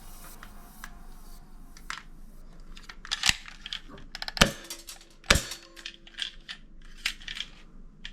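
Scattered clicks and knocks of hard objects being handled, with three sharper, louder hits about three, four and a half and five and a half seconds in.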